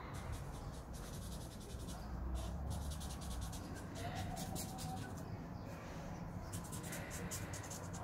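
White paint marker scratching across a sheet of card in rapid short strokes, stroke after stroke with brief pauses.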